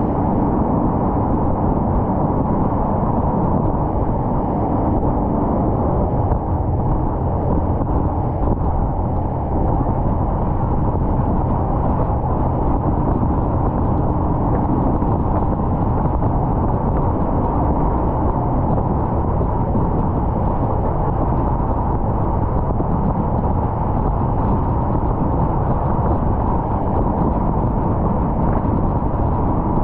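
Open passenger speedboat running fast: a steady, loud drone of the engine mixed with water rushing past the hull.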